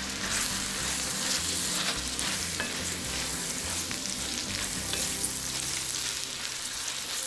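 Chunks of horse meat with carrot and onion frying in oil in a wide pot, sizzling steadily while a wooden spatula stirs them, with small scrapes and clicks of the spatula against the pot.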